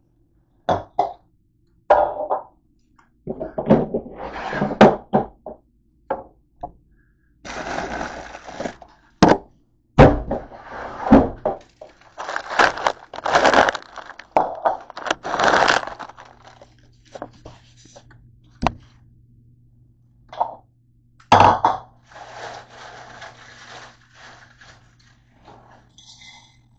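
Kitchen handling noises: dishes and a bowl clattering, knocking and scraping as they are taken from the dish rack and set down, loudest about ten seconds in. Then a plastic cereal bag rustles, and near the end cereal is poured from the bag into the bowl.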